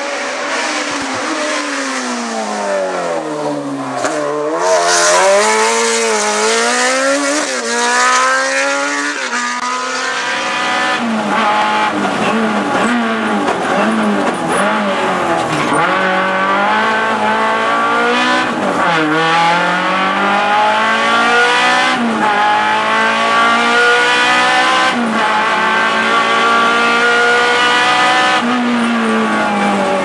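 A race car's engine running hard at a hillclimb, its note falling and rising as it brakes and accelerates through a bend. About ten seconds in it gives way to the Renault Clio Sport rally car's engine heard from inside the cabin, revs repeatedly climbing and dropping back with each gear change as it climbs flat out.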